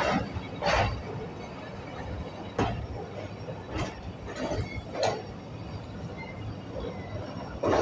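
Passenger train running, heard from an open coach window: a steady rumble of wheels on rail with irregular knocks and clanks every second or so.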